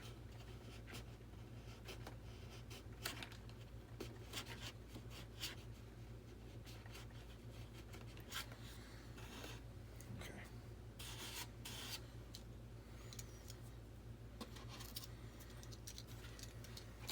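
Hobby knife blade shaving and cutting the foam of a model jet's tail: faint, irregular scratchy strokes with small clicks, over a steady low hum.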